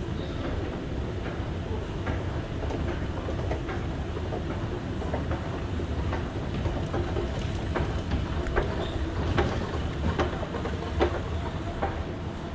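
Escalator running: a steady low mechanical rumble with scattered clicks and knocks, which come more often in the second half.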